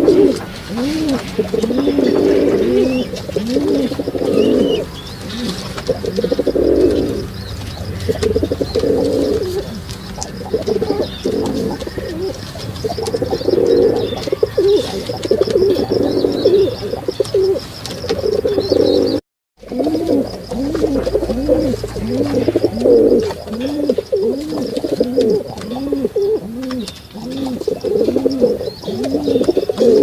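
Pigeons cooing in a steady run of short rising-and-falling coos, about one or two a second. The sound cuts out briefly about two-thirds of the way through.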